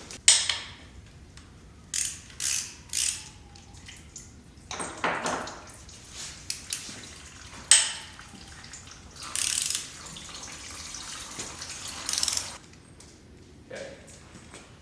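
Ratchet wrench clicking in short spells as bolts on a Ford 7.3 diesel's oil cooler are worked loose, with a sharp metal clink near the start and another about eight seconds in.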